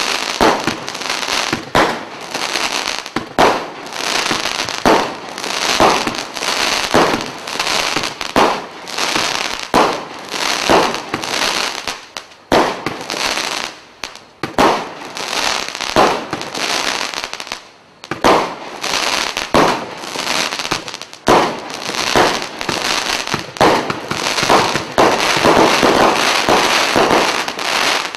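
Black Cat Centurion 105-shot single-ignition firework cake firing shot after shot: a sharp bang about once or twice a second over continuous crackling from the bursts. The last few seconds are a denser, louder volley, and the sound cuts off at the very end as the cake finishes.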